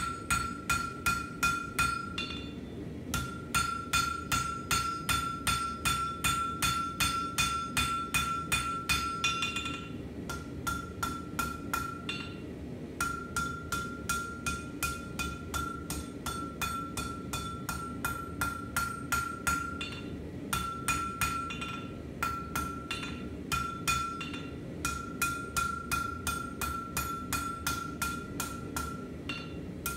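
Hand hammer striking red-hot steel on an anvil in a quick steady rhythm, about three blows a second, with the anvil ringing on one steady note between strikes and a few brief pauses. The blade's tip is being forged to a point with the hammer.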